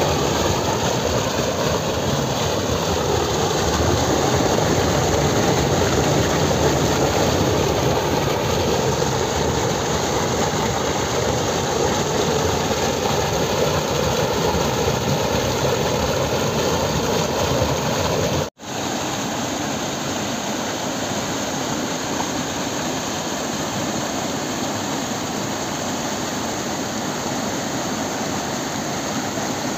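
Rain-swollen stream water pouring over a small drop and rushing through a stone-walled channel: a loud, steady rush of falling and churning water. About two-thirds through it cuts out for an instant, then carries on slightly quieter and less deep, as flowing channel water.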